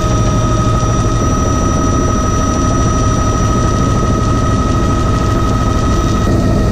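Bell 206B JetRanger III helicopter in flight, heard inside the cockpit: the steady whine of its Allison 250 turboshaft engine over the low rumble of the rotor.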